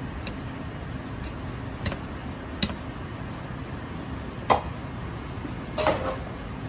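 A handful of sharp clinks and taps of kitchen utensils against dishes or cookware, the loudest about four and a half seconds in and a short ringing clatter near the end, over a steady low rumble.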